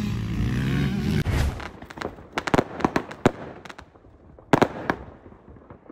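Firecrackers going off: a string of sharp bangs at uneven intervals, some in quick succession. Before them, an engine-like drone stops about a second and a half in.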